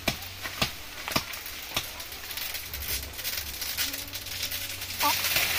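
A hand-held blade chops into forest plants: four sharp strikes about half a second apart in the first two seconds, then softer scattered noises, and a louder steady hiss starting near the end.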